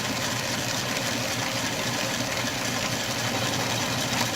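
Atlas metal lathe running steadily, its spindle turning an end mill in a milling setup.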